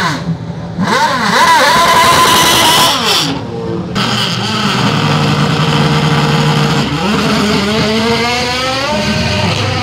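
Sports racing car's engine blipped in short revs, then held at steady revs and, about seven seconds in, launched off the start line, its pitch rising as it accelerates away.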